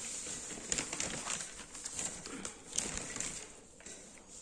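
Newspaper pages being handled and turned: soft paper rustles with scattered light clicks.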